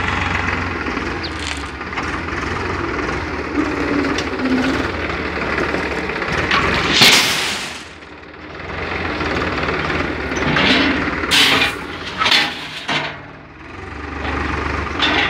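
Tractor engine running under a tractor-mounted gravel bucket loader; about seven seconds in, a load of gravel pours into a metal trailer with a loud rush. Later come a few short crunching hits as the bucket works the gravel pile.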